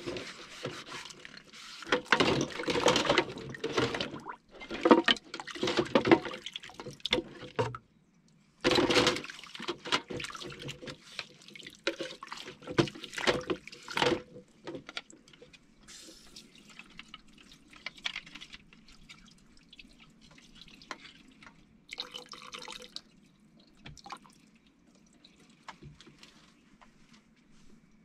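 Dishes being washed by hand at a kitchen sink: water running and splashing, with knocks and clatter of dishes and utensils. The sound is busy and loud for the first half and quietens to occasional small sounds after about halfway.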